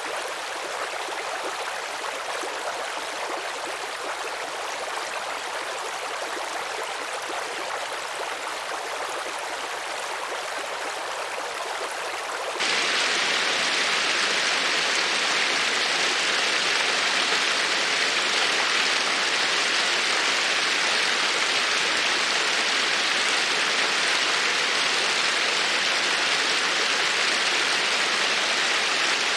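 Running water of a stream flowing steadily. About twelve seconds in, it cuts abruptly to a louder, fuller rush of water that then holds steady.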